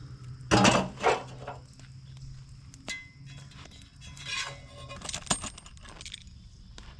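Cast iron cookware clanking: two loud metal clanks about half a second in, then lighter clinks and taps.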